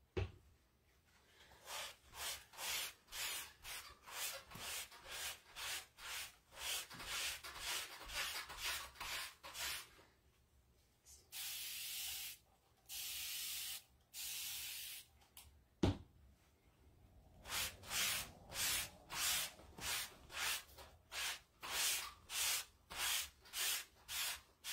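Scrubbing strokes of a pad on a wet Chalk Couture silkscreen transfer, about two a second, to clean off chalk paste. Midway a spray bottle gives two long hissing sprays of water onto the screen, then a sharp knock, and the scrubbing starts again.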